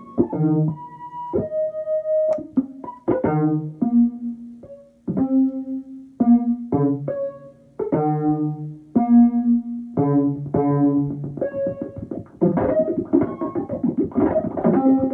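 Buchla Music Easel synthesizer playing a sequenced pattern of short pitched notes from its complex oscillator, each note starting sharply and fading, a few a second. About twelve seconds in, the notes crowd into a denser, busier texture.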